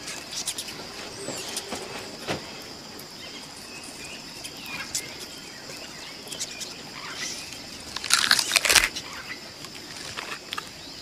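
Jungle ambience with a steady high-pitched drone and a few bird chirps, under scattered crackling snaps as a large cockroach's shell and legs are broken apart by hand. The crackling peaks in a loud burst of crunching about eight seconds in.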